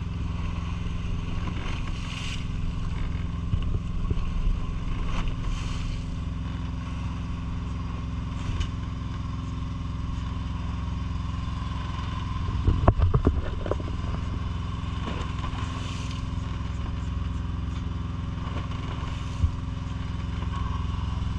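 Engine on a fishing boat running at a steady drone. A short burst of clattering knocks comes about halfway through and is the loudest sound, and a single knock follows near the end.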